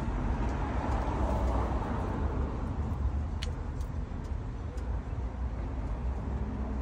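Steady low outdoor rumble with a few faint clicks from hands working in the car's trunk, one clearer about three and a half seconds in.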